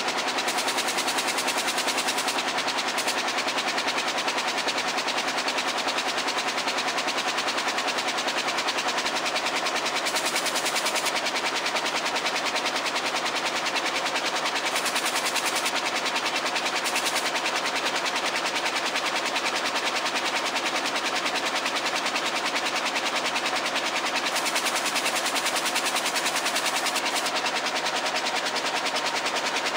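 Air jet loom running while weaving denim: a fast, steady mechanical clatter of picks beating up in quick succession, with a hiss of air over it.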